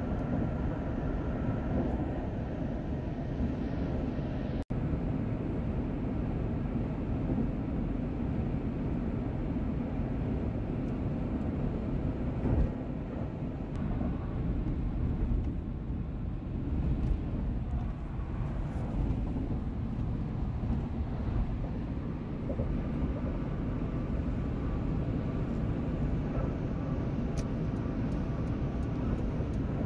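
Steady road and engine rumble heard from inside a moving car's cabin, with a momentary break about five seconds in.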